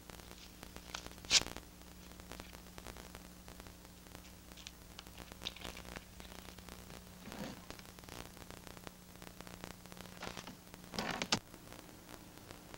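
Faint hiss and a steady low hum, with a few short rustles of paper photographs being handled; the sharpest comes about a second and a half in, with another cluster near the end.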